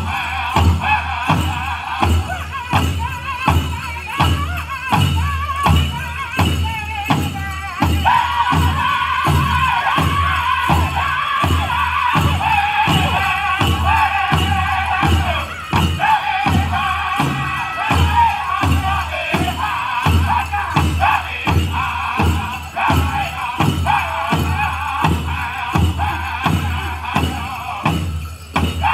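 A powwow drum group sings a men's chicken dance song in high voices over a steady beat on a large shared drum, about two beats a second.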